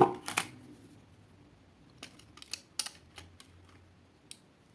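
Scattered light clicks and taps of a screwdriver and wire ends against the screw terminals of a wall socket as its wires are undone, in the second half.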